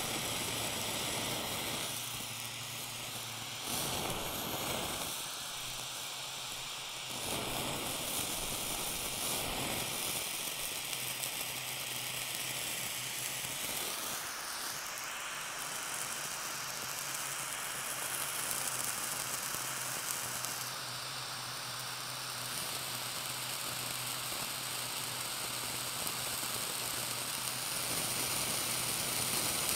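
Small handheld blowtorch flame hissing steadily against a block of blue cheese. The tone of the hiss shifts a few times as the torch is moved to new spots, most plainly about halfway through.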